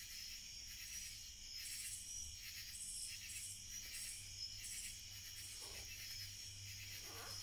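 Night insects chirping: a steady high trill with louder pulsed calls repeating a bit under twice a second.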